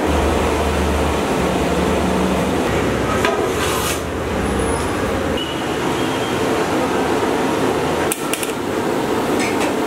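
Steady roar of a gas burner under a large aluminium cooking pot, with a metal ladle clinking against the pot while stirring, about three and a half seconds in and again about eight seconds in.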